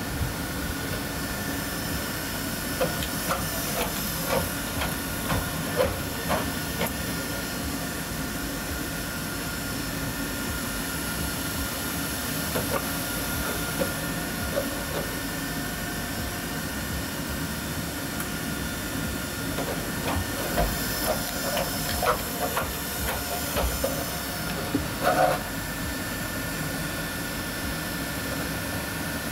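Electric Atlas humanoid robot at work handling engine covers: a steady hiss with a faint high hum runs throughout. Scattered light clicks and knocks come in clusters a few seconds in and again around twenty seconds in.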